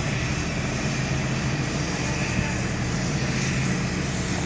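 Reach stacker's diesel engine running steadily under load, a constant low drone, while its boom holds a heavy suspended load.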